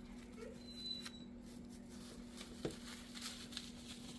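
Faint rustling and a couple of soft clicks from plastic food wrap being handled, over a steady low hum.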